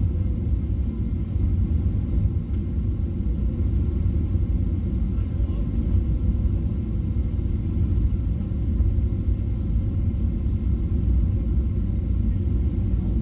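Steady low rumble inside the cabin of a Boeing 777-300ER on final approach: GE90 engine and airflow noise heard from a window seat over the wing, with a faint steady hum.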